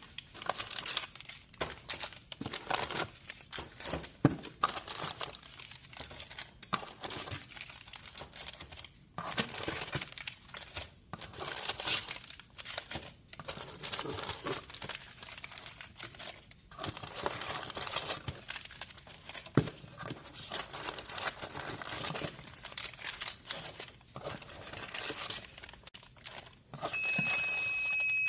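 Crinkly plastic snack wrappers and packaging rustling and crackling as they are handled during a vending machine restock. Near the end, a steady high electronic beep sounds for about two seconds and is the loudest sound.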